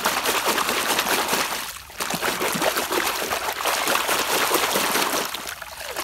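Muddy water splashing and sloshing as a plastic toy concrete mixer truck is swished vigorously by hand through shallow pond water, washing the mud off it, with a brief let-up about two seconds in.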